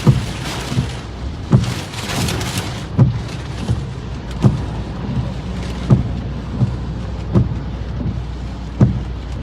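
Heavy rain and storm wind beating on a car. Over it, the windshield wipers thump at the end of each sweep, about every one and a half seconds.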